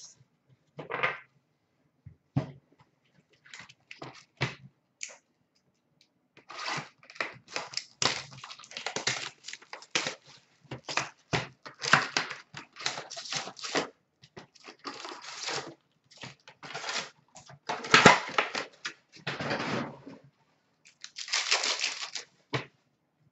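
Trading-card packs being torn open and their wrappers crinkled, along with a cardboard box being handled: an irregular run of short rustling, crackling and tearing sounds, busiest in the middle and again near the end.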